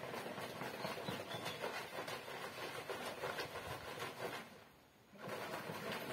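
A large plastic bottle of liquid with herbs being shaken by hand, the contents sloshing against the plastic in a steady run of rattly splashing, broken by a short pause about four and a half seconds in before it resumes.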